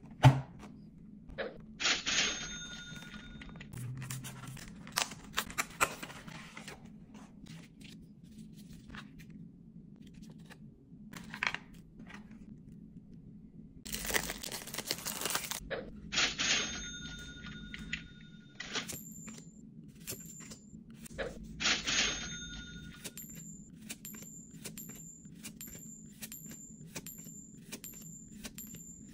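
Plastic shrink wrap crinkling and tearing as it is peeled off a trading-card deck, mixed with added sound effects: three louder hits that ring on with a high tone, and in the last third a fast, regular run of short high dings, about one and a half a second.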